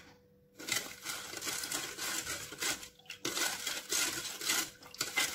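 Metal spatula stirring and scraping against the bottom and sides of an aluminium saucepan of milky pudding mixture, a fast continuous rasping scrape. It starts under a second in and breaks off briefly about three seconds in.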